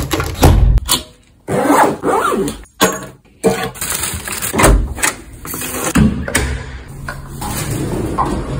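Belongings being packed by hand: rustling, clunks and knocks as items go into a basket and a bag, broken by a few abrupt changes.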